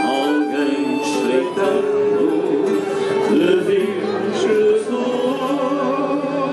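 Live Coimbra fado: a man singing over Portuguese guitar, classical guitar and accordion.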